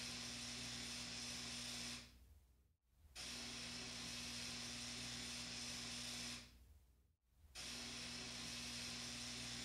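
Steady hiss with a low hum and one steady low tone. It comes in stretches of about three seconds, each starting suddenly and fading out. The sound dies away about two seconds in, starts again about a second later, and repeats once more, like a short recording looped.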